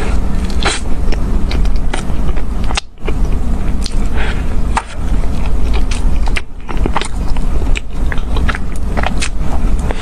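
Close-miked biting and chewing of a chocolate-coated horn-shaped bread: many sharp crackles and clicks of the chocolate coating and soft bread being eaten, over a steady low rumble.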